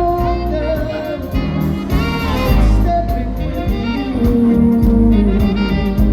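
Langarm dance-band music with a steady beat and a melodic line, played between the song's sung lines.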